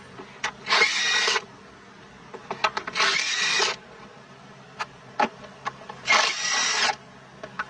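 Cordless 3/8-inch-drive impact wrench on its highest setting, in three short bursts about two to three seconds apart as it breaks loose and spins out 13 mm intake-manifold bolts. Small clicks come between the bursts.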